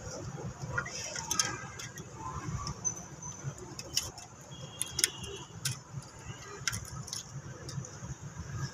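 Irregular metallic clicks and scrapes of steel pliers twisting binding wire around a bamboo pole, over a steady low rumble of wind on the microphone.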